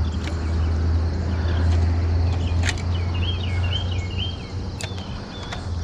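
Steady low hum of outdoor background noise, with a bird chirping a short wavering phrase about three seconds in and a couple of light clicks.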